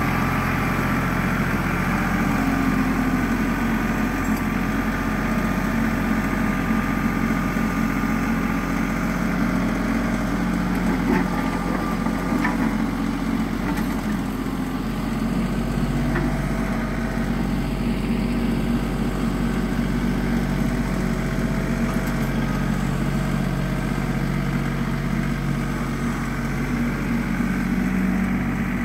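Compact diesel tractor engine running steadily under load while it pulls a rear box blade across loose dirt.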